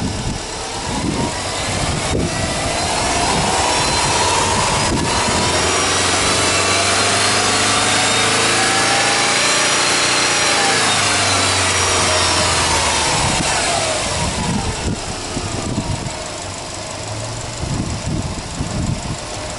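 Subaru Impreza WRX STI A-Line's turbocharged 2.5-litre flat-four engine, heard close at the open engine bay. It is revved slowly from idle: the pitch climbs gradually for about seven seconds, then eases back down to idle over about five seconds.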